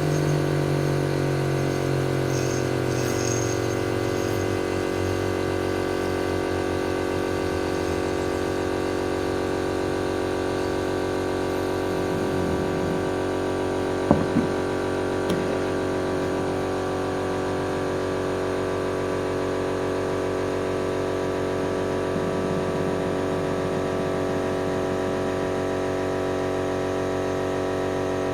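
Steady mechanical hum of a spinning machine, made of many even tones. Its lowest note falls in pitch over the first five or six seconds and then holds, and a few short clicks come about halfway through.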